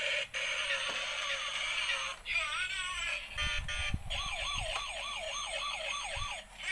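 Toy police car's electronic siren sound effect playing from its small built-in speaker, thin and high with no low end. A run of electronic tones gives way, about four seconds in, to a quick rising-and-falling wail.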